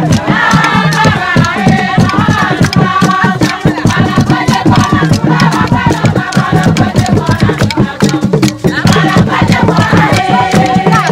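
A group of voices singing together over a dense, fast rhythm of rattles and other percussion.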